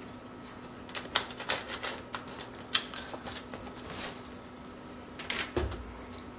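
Irregular light clicks and taps, a few a second, with a low thump about five and a half seconds in, over a faint steady hum.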